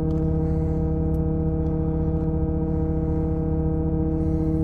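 Hydraulic pump of a Vulcan 812 self-loader wheel lift running with a steady, even hum as the wheel lift unfolds, heard from inside the truck's cab.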